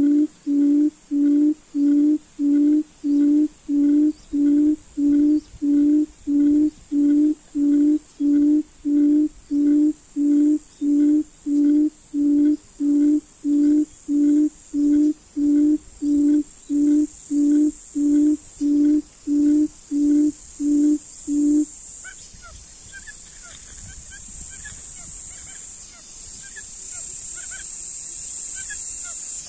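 A quail's low booming hoot, repeated evenly about one and a half times a second, which is the call used to lure wild quail to the trap. It stops abruptly about three quarters of the way through. After that come faint bird chirps and a high insect hiss that grows louder.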